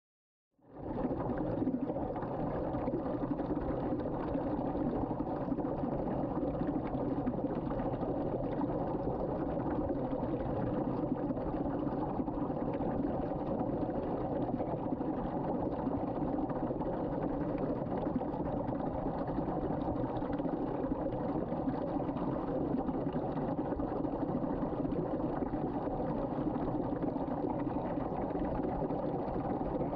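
Water swirling down a sink drain in a whirlpool vortex: a steady sound of running, draining water that starts just under a second in.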